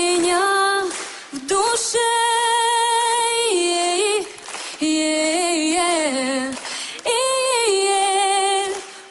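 A woman singing a cappella: long held notes with vibrato, with short breaths between phrases.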